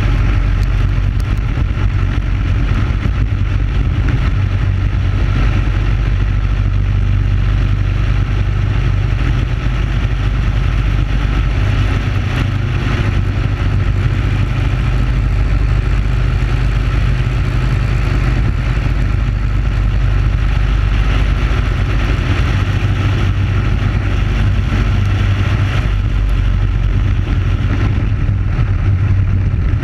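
Briggs & Stratton Animal single-cylinder four-stroke kart engine running steadily at racing speed, a loud, even drone heard from on board the kart.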